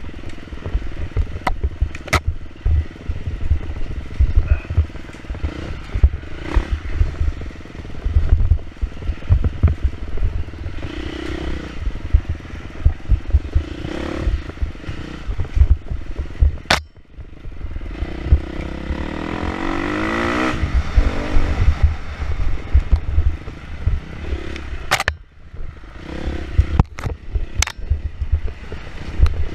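Dirt bike engine revving up and down as it is ridden hard over a rough trail, with a clear rising run through the revs past the middle. Heavy wind buffeting on the microphone sits under it, and sharp knocks come from the bumps now and then.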